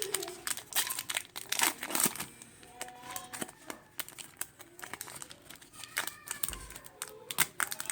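Foil booster-pack wrapper crinkling and crackling in the hands as it is torn open, with many sharp crackles through the whole stretch.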